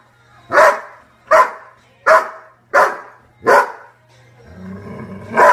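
Golden retriever barking again and again at another dog lying on its back, in play, about one sharp bark every three-quarters of a second. A low, rough sound fills a gap about four seconds in, just before one more bark.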